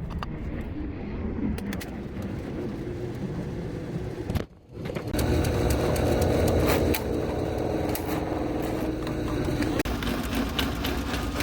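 Gorlitz drain-cleaning machine running, spinning a 3/8-inch cable through a kitchen drain line clogged with grease. The sound breaks off briefly about four and a half seconds in, then comes back louder and steady.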